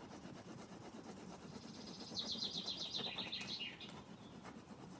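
Felt-tip marker scribbling back and forth on paper in quick strokes, colouring an area in. About two seconds in, a run of high chirps lasts about a second and a half.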